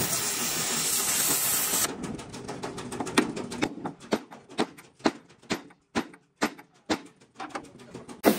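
A steady hiss that cuts off about two seconds in, then a regular run of hammer blows, about two a second.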